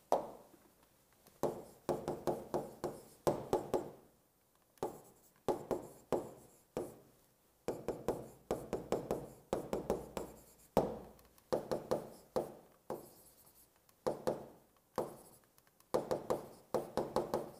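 Chalk writing on a chalkboard: clusters of quick tapping and scratching strokes, one burst per character or word, with short pauses between bursts.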